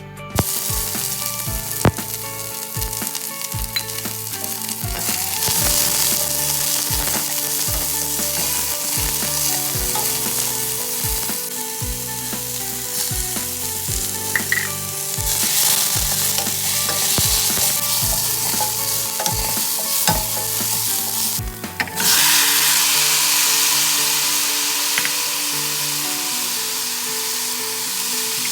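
Food sizzling in hot oil in a pan, a steady frying hiss. Background music with a regular beat plays under it until it stops about three-quarters of the way through, after which the sizzle is louder on its own.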